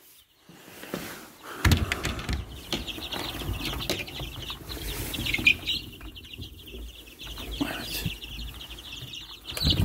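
Chicks cheeping in a dense, high chorus that starts about two seconds in, over low thumps and rustling of handling close to the microphone.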